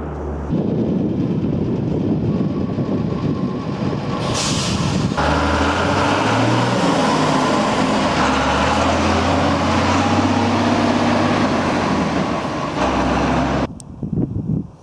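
Large army truck with a loader crane driving past close by, its diesel engine running loudly throughout. There is a short hiss of air about four seconds in, and the engine gets louder from about five seconds as the truck passes. The engine sound cuts off near the end, leaving gusty wind on the microphone.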